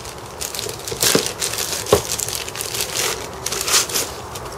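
Clear plastic packaging bag crinkling as it is torn open and a fabric magazine pouch is pulled out of it. It comes as a run of rustling bursts, with sharper crackles about one and two seconds in.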